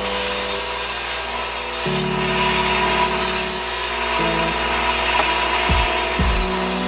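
Ryobi bench grinder's wheel grinding the edge of a steel lawn mower blade, a continuous rasping grind as the blade is pressed to the wheel in passes, with background music.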